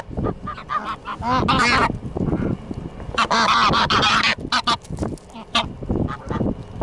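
Domestic geese honking, with two longer runs of honks about a second in and around three to four seconds in, and shorter honks between.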